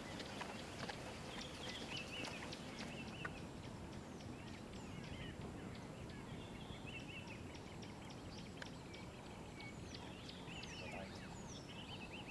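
Birds calling in the bush: short chirps repeated every second or so, with a few higher falling whistles, over a steady background hiss.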